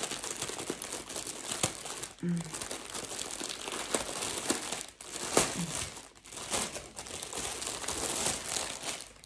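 Plastic packaging bag crinkling and rustling as it is handled and worked open, with frequent sharp crackles; it dies away near the end.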